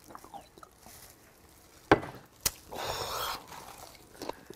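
Quiet gulps from a glass soju bottle, then a sharp knock about two seconds in as the bottle is set down on the table, a second sharp tap just after, a short hiss, and small chewing clicks near the end.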